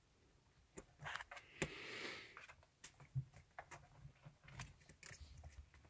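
Faint rustling and scattered light taps and scratches from kittens scrambling about a carpeted cat tree and sheet-covered bed, with a soft rustle swelling about two seconds in.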